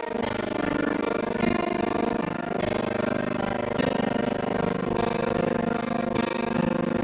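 Background music: sustained chords that shift every second or so.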